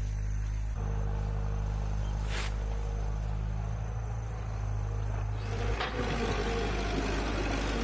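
An engine running steadily with a constant low hum; its sound changes slightly about three-quarters of the way through.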